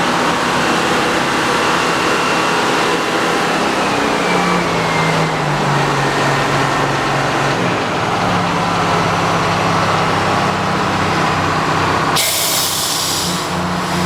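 Frick sawmill's power engine running steadily with the saw turning, its pitch shifting a little partway through, and a short hiss about twelve seconds in.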